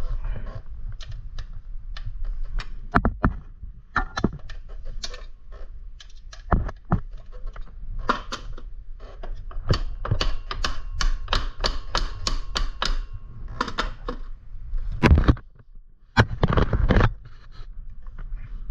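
Metallic clicking and knocking from hands-on work on a mountain bike's rear derailleur and chain, with a fast even run of clicks in the middle and a couple of heavier knocks near the end.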